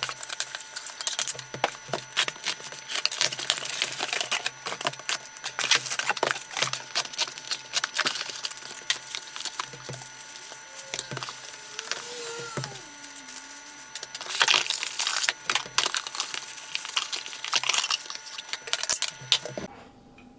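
Cardboard boxes and plastic packaging being handled: a dense run of crinkling, rustling and light knocks as light parts are packed back into their boxes, stopping abruptly near the end.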